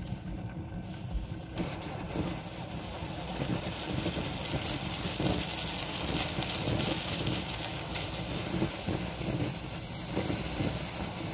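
A covered pot of boiling noodle water steaming hard: a steady hiss of steam over a low bubbling rumble, with the hiss getting louder about a second and a half in.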